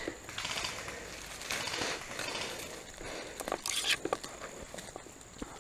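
Footsteps through dry leaf litter and undergrowth: irregular rustling and crunching, with a louder brush of leaves a little before four seconds in.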